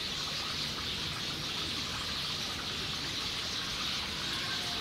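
Steady rush of running water, even and unbroken, with a few faint short chirps.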